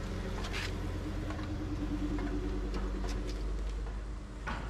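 A few light clicks and snaps of plastic grille retainer tabs being pried and pulled out of a truck's radiator support, over a steady low hum.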